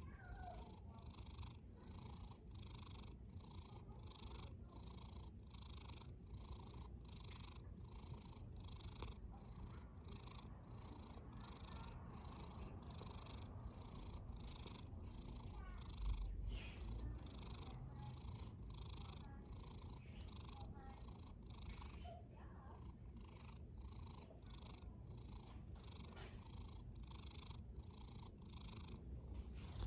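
A sleeping cat snoring in a steady, even rhythm, about two pulses a second. There is a low thump about sixteen seconds in.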